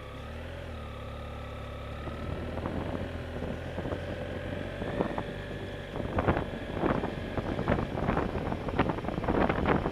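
Motorcycle engine running at low road speed as the bike picks up pace, getting steadily louder. Wind buffeting on the microphone comes in gusts over the last few seconds and grows stronger.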